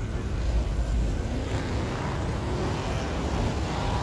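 Car engines running as cars creep past, a low rumble with wind buffeting the microphone; the rumble is strongest in the first second.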